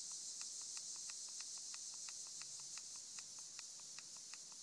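Summer insects in woodland, faint: a steady high hiss with a regular chirp running on top, about four chirps a second.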